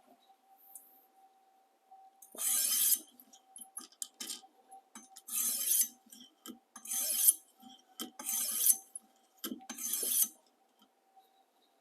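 Chef knife edge drawn along a coarse 250-grit sharpening stone on a guided ViperSharp system: five gritty scraping strokes, each under a second, running the full length of the blade from heel to tip. Small clicks fall between the strokes, and a faint steady hum runs underneath.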